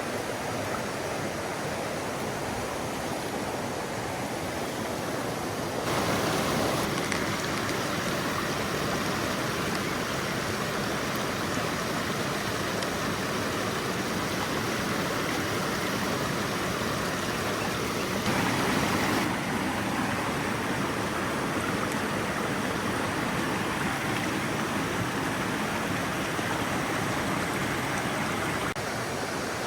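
Mountain stream water rushing steadily. Its level and tone change abruptly about six seconds in and again around eighteen to nineteen seconds.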